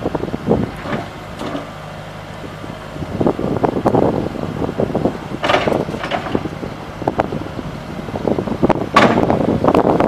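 CAT 262D skid steer's diesel engine running as the machine drives along with its loader arms raised, with irregular knocks and gusty noise over it, the loudest about nine seconds in.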